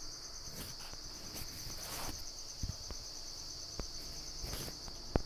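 Crickets chirping in a steady, fast-pulsing high trill, with a few soft clicks and one sharper click near the end.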